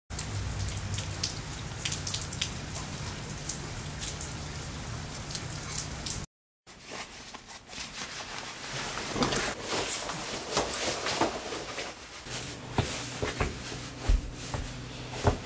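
Steady rain falling on wet pavement, with many small drips and splashes; it cuts off abruptly about six seconds in. After a short silence come indoor rustling and scattered light knocks as someone handles clothes at an open closet.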